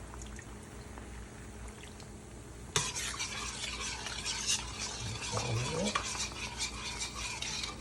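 Butter, garlic and lemon sauce sizzling in a frying pan while a spoon stirs it. The sizzle jumps suddenly louder about three seconds in.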